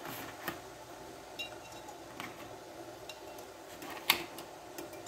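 Light metallic clicks and clinks as a perforated stainless steel skimmer knocks against a stainless steel pot and quail eggs tap on the metal while being lowered into hot water; five or so separate clicks, the loudest about four seconds in.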